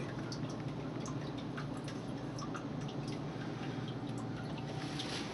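Water dripping from an old tank water heater being drained: small irregular drips over a steady low hiss.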